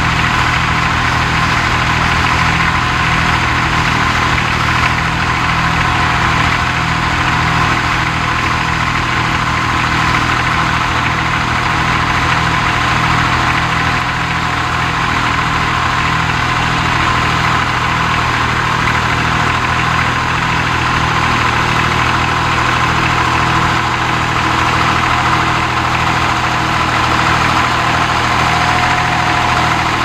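Fordson Dexta tractor engine running steadily as it pulls a plough through the field.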